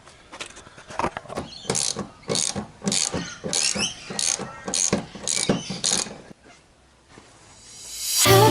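Socket ratchet wrench clicking in short, quick strokes, about two to three a second, as the seat-rail bolts are undone. Music fades in near the end.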